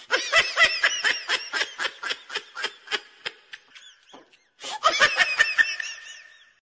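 A person laughing in quick, high-pitched bursts: one long run of laughter, a short pause, then a second burst about five seconds in.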